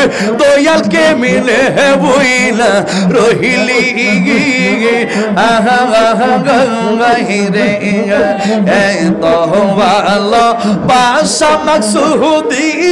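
A man singing a Bengali devotional zikir song into a microphone, with long wavering notes.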